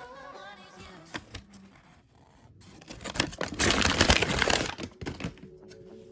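Toy packaging being handled: scattered clicks and taps, then a loud burst of crinkling and tearing about three seconds in that lasts a second and a half.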